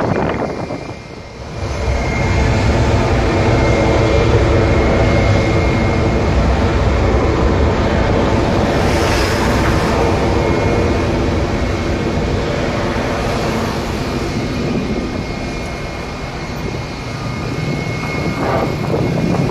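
Jet airliner engines running: a loud, steady rumble with a faint whine, which swells around the middle.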